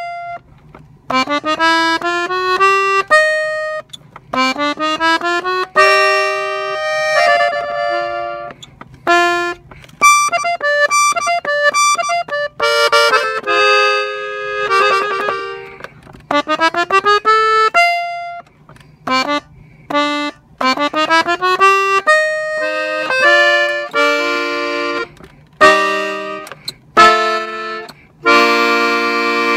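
Gabbanelli diatonic button accordion in F tuning playing a melody in B-flat. Quick rising runs of notes come in short phrases with brief gaps between them, and near the end it holds one full chord.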